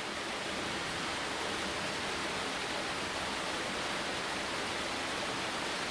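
Steady rushing of flowing water, an underground stream in a karst limestone cave.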